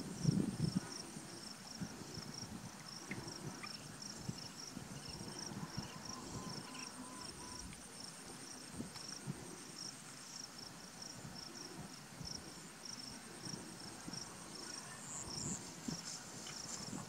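Insects chirping steadily: a high chirp repeating several times a second over a fainter, higher trill, with soft rustling in the grass.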